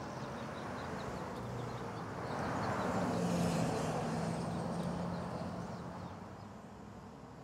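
A car passing by on the street: its tyre and engine noise swells over a couple of seconds, with a low engine hum, then fades away. Faint bird chirps sound over it.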